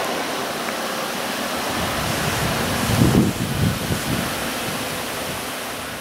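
Wind buffeting the microphone over a steady rushing noise, with a louder low gust about halfway through.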